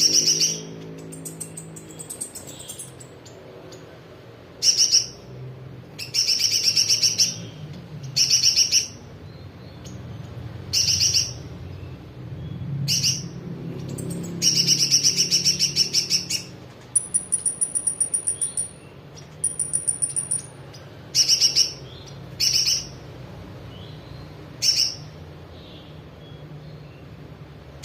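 Brown-throated sunbird (kolibri ninja) singing a song tutored with spiderhunter calls: repeated bursts of rapid, rattling high notes, each lasting up to about two seconds. Two thin, very high whistled phrases come about two-thirds of the way through.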